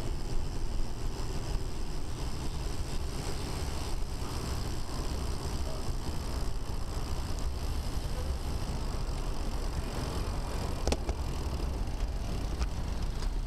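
Steady wind rumble and tyre noise picked up by a camera riding on a moving road bike. A couple of light clicks come near the end.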